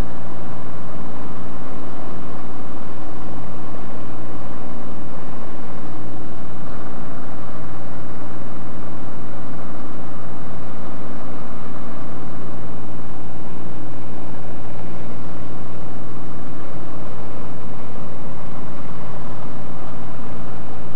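Light aircraft's piston engine and propeller droning steadily at cruise, heard from inside the cabin, with a constant low hum and no change in pitch.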